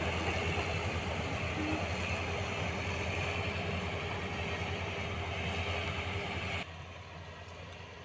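Preet combine harvester's diesel engine and threshing machinery running steadily as it works through standing crop. About six and a half seconds in, the sound drops suddenly to a quieter, duller hum.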